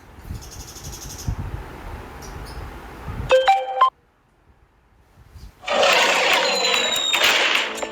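Mobile phone ringtones. About three seconds in, a short electronic jingle of a few stepped tones is heard. After a pause of near silence, the next ringtone starts loud near the end with a dense, noisy sound that leads into guitar music.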